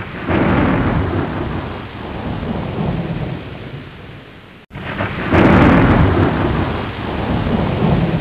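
Thunderstorm sound effect: a thunderclap rumbles over steady rain, fading, then cuts off abruptly and starts over with a second loud rumble about halfway through.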